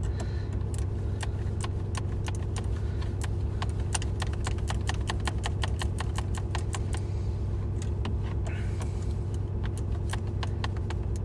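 Ratcheting wrench clicking quickly and steadily as it works the 10 mm bolt that holds the truck's loose shifter, loosening it so the threads can take thread-locker. A steady low hum runs underneath.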